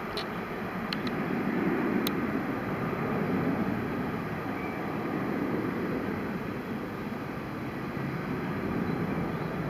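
Airbus A380's four turbofan engines at taxi power, a steady distant rumble, with a few faint clicks in the first two seconds.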